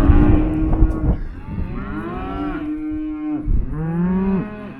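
Cattle mooing, several long, pitched calls overlapping one another. These are cows and calves bawling as the calves are sorted off for weaning.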